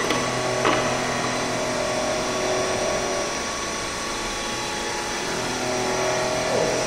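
Retrofitted Olivetti milling machine running, its electric motors giving a steady hum with a few held tones. There are two short clicks in the first second.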